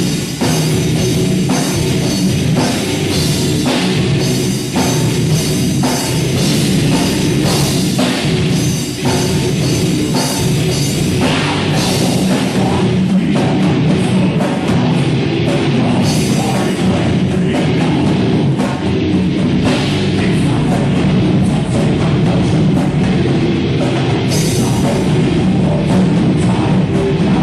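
Heavy metal band playing live, with loud, steady electric guitar and a pounding drum kit.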